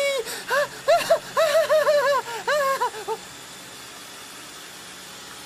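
A voice sings a quick run of about ten short notes, each one bending up and down in pitch, and stops a little after three seconds, leaving a low steady hiss.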